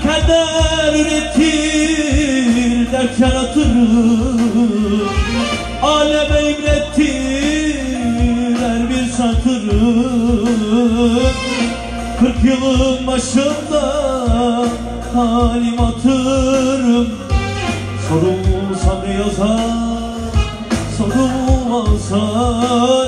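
Man singing a Turkish song with a wavering, ornamented melody into a microphone over his own electronic keyboard accompaniment, with a steady low beat.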